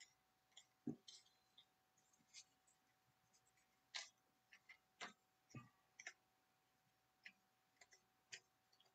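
Faint, irregular clicks and soft snaps of paper baseball cards being slid and flipped one by one off a stack held in the hand.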